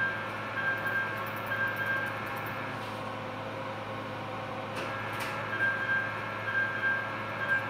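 Electronic beeping from operating-room equipment: a short, high tone repeated about once a second over a steady machine hum. The beeps stop for about three seconds in the middle, then start again.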